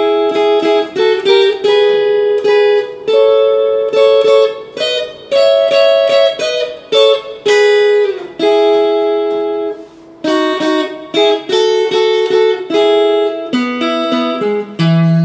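Telecaster-style electric guitar playing a rockabilly lick of two-note double stops, picked repeatedly and stepping along the neck. There is a short pause about two-thirds through and a lower note near the end.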